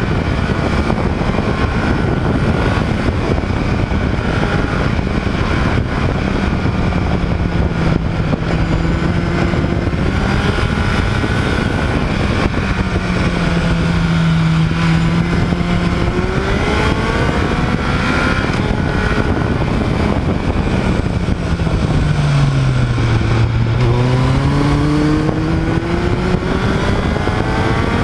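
Motorcycle engine heard from on board while riding, its note rising and falling with the throttle through the bends over a steady rush of wind and road noise. The note drops to its lowest a few seconds before the end, then climbs again.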